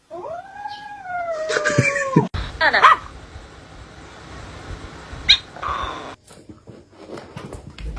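A cat's long drawn-out yowl lasting about two seconds, rising in pitch, holding, then dropping at the end. A shorter wavering cry follows, then a few light clicks over background noise.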